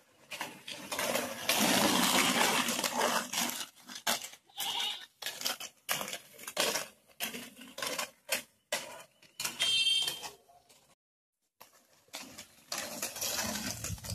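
Inline skate wheels rolling over a rough paved road, a gritty, uneven rattle full of small clicks. A brief high-pitched call comes near ten seconds in, and the sound drops out for a moment just after.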